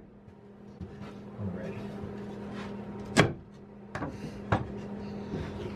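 Wooden knocks and taps as a glued wooden box is handled and its joints pressed together on a workbench: one sharp knock about three seconds in is the loudest, followed by a few lighter taps, over a steady low hum.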